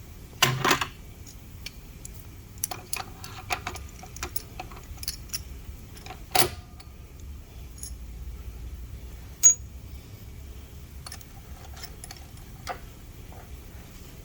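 Scattered metallic clinks and knocks of tools and metal parts being handled at a workbench, with a louder clank about half a second in, another around six and a half seconds, and a sharp click a little after nine seconds, over a faint steady low hum.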